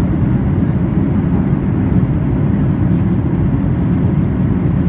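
Steady low roar inside the cabin of a Boeing 737-800 in flight on descent: engine and airflow noise heard from a seat over the wing.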